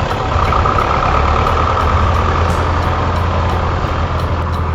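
A vehicle engine runs steadily, a low hum with a faint steady whine above it.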